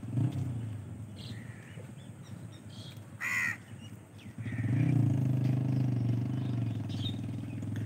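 A crow caws once, briefly, about three seconds in. Then a low, steady droning sound starts about four and a half seconds in and runs for about four seconds; it is the loudest sound here.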